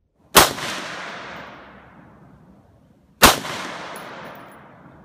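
Two rifle shots from a Stag Arms AR-15, about three seconds apart, each followed by an echo that fades over a couple of seconds.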